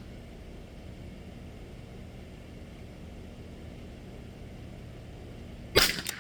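A single sharp .22 LR rifle shot near the end, with a smaller crack a moment after, over a steady low rumble.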